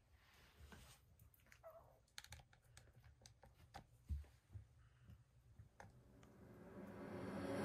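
Faint scattered clicks and soft scuffs from a Jack Russell Terrier's paws and claws working at a rug, with one slightly louder knock about four seconds in. Music fades in near the end.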